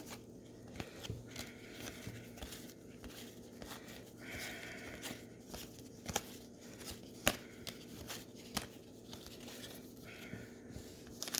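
Cardboard trading cards being handled and flipped through by hand: faint rustling and light clicks, with a few sharper ticks in the second half.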